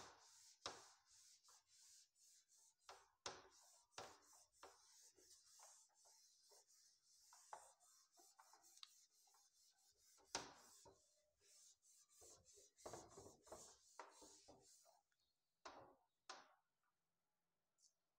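Faint, irregular rubbing strokes of a duster wiping marker writing off a whiteboard, dying away near the end.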